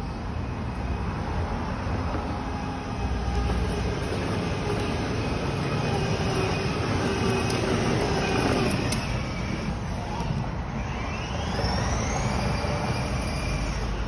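Kids' battery-powered ride-on toy cars driving by remote control across a hard floor: small electric gearbox motors whining and plastic wheels rolling, a steady rumble that gets louder about three seconds in. In the second half the whine falls, then rises in pitch.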